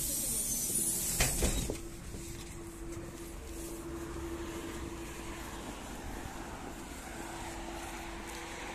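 Compressed air hissing from a LAZ E301D1 trolleybus's pneumatics, with a few knocks, cutting off about two seconds in. After that comes steady street noise with an on-and-off low hum.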